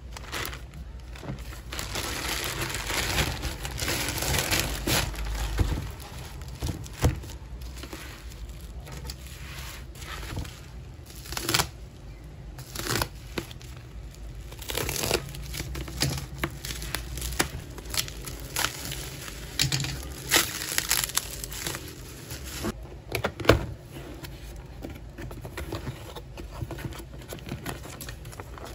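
Plastic packaging being handled and unwrapped: a thin plastic bag and bubble wrap crinkling and rustling irregularly, with frequent sharp crackles.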